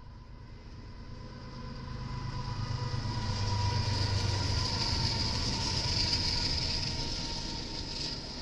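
Diesel freight locomotives leading a train past close by. Engine rumble and a high hiss build to a peak around the middle, then ease as the units go past.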